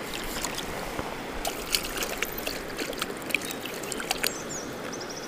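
Shallow stream running over stones, with short splashes and clicks as hands work in the water around a trout held in a landing net.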